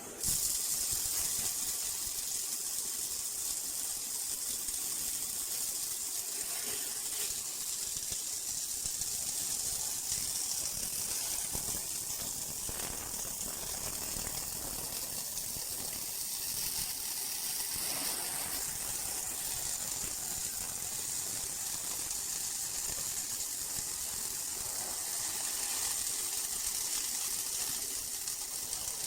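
Automatic MIG welding machine's arc, a steady high hiss while it welds ringlock scaffolding parts.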